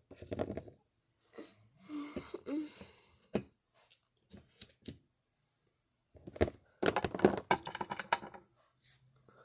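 Small plastic toy figures and props being handled and moved about: scattered clicks and soft rustling, then a dense run of clattering clicks about six seconds in.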